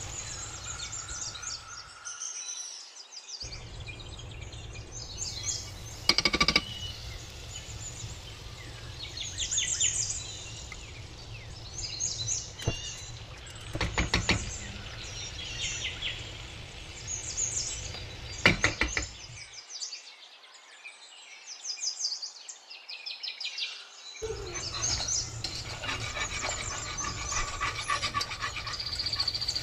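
Birds chirping and trilling in short bursts throughout, with a few sharp clinks of a metal spoon against the pan.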